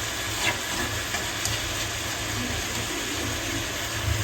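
Onions and chopped tomatoes sizzling steadily in hot oil in a pan, with a couple of faint clicks.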